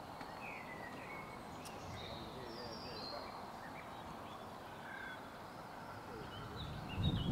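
Open-air background noise with scattered short bird chirps. A louder low rumble comes in near the end.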